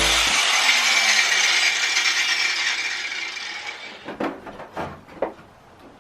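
Angle grinder on the steel support beams of a van wall, its grinding noise and whine falling away over about four seconds, followed by a few sharp metallic clinks.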